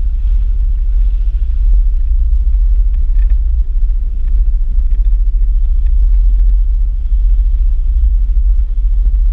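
Gusty wind buffeting the microphone: a loud low rumble that swells and dips without a break.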